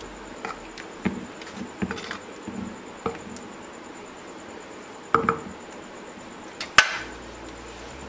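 Wooden spoon knocking and scraping against an earthenware pot while a thick curry gravy is stirred: a handful of scattered knocks, with one sharper, louder knock about seven seconds in.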